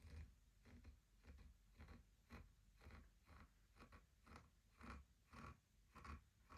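Soft wooden taps and clicks on a wooden Shut the Box game, about two or three a second and slightly uneven, some with a short hollow ring.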